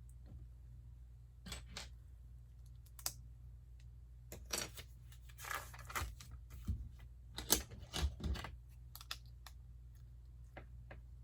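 Small hard plastic clicks and taps from LEGO pieces being handled and pressed together, irregular and fairly faint, with a short rustle about five and a half seconds in.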